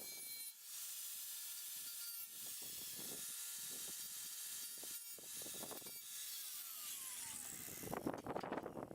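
Angle grinder with a grinding disc working down welds on thin sheet-steel body panel, a steady abrasive hiss. About six seconds in a whine slides down in pitch, and near the end a louder, rougher scraping begins.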